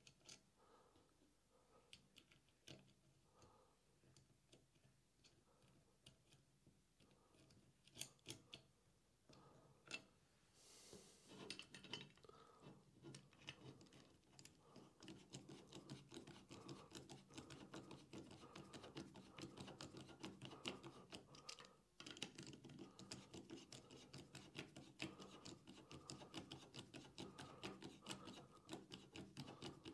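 Faint clicking of small metal parts being handled as bolts are fitted through a Workbee Y plate into nut blocks. From about eleven seconds in comes a dense run of rapid faint clicks as a hand screwdriver turns the M5 button-head bolts into the nut blocks.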